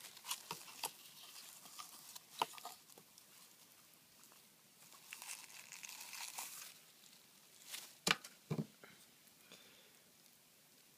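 Shavings bedding and a cardboard toilet paper tube rustling and crinkling as a hedgehog rummages with its head in the tube, with scattered light clicks. Two sharper knocks come about eight seconds in, and it goes quieter after that.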